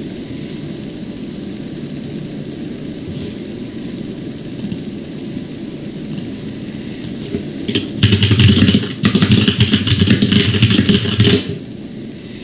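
Rapid typing on a computer keyboard, a dense run of clicks for about three and a half seconds starting about eight seconds in, over a steady low background hum.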